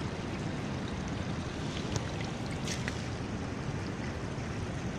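Small river's shallow water flowing over a stony bed, a steady rushing, with a couple of brief faint clicks near the middle.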